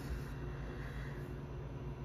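Steady low background hum with a faint hiss: room tone, with no distinct events.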